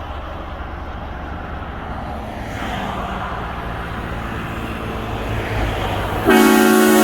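Vehicle engine and road noise, then, a little over six seconds in, a sudden loud blast of a car-mounted train horn with several notes sounding together.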